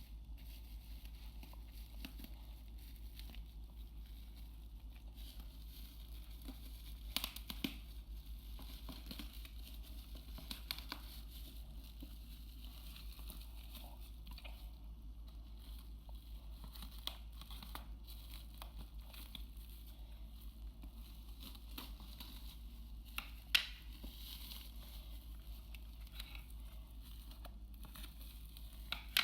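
Packaging being handled and unwrapped: faint crinkling and tearing of wrapping, with a few sharp clicks, the loudest late on, over a steady low hum.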